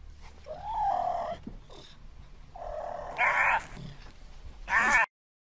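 Cougar calling: several short, pitched cat calls, the loudest just before the end, then the sound cuts off suddenly.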